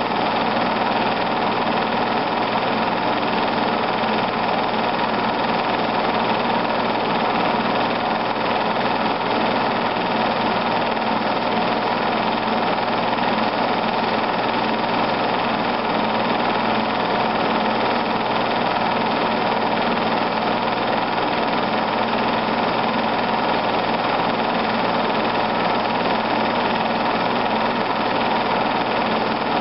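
Film projector running, an even mechanical whir from its motor and film transport, unchanging throughout.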